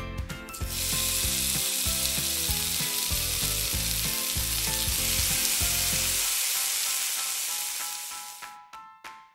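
Breaded pork cutlet deep-frying in a tiny pot of hot oil: a loud, steady sizzle starts about a second in and fades near the end. Background music plays under it for the first part.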